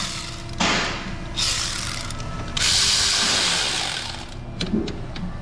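Cordless electric ratchet running in three bursts, the last the longest, driving in a power steering pump mounting bolt, followed by a few light clicks.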